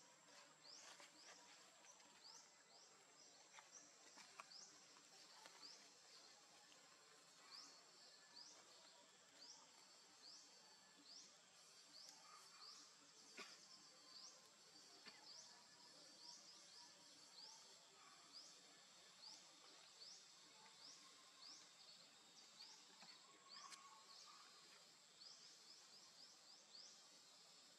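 Faint forest ambience: a steady high thin insect whine with a quick rising chirp repeated one to two times a second, and a few soft clicks.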